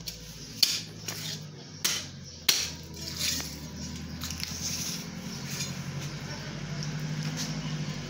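Sharp chops of a large curved butcher's knife cutting a raw chicken into pieces on a wooden chopping block, several strikes in the first three seconds, the loudest three about half a second, two seconds and two and a half seconds in. A low steady hum comes in about halfway through.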